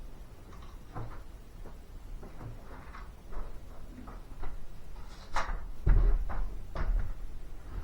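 Irregular knocks, clicks and clunks of objects being handled, with a few heavier thumps about five to seven seconds in.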